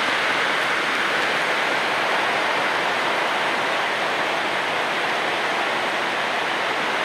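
Heavy rain falling, a steady, even hiss of water with no breaks.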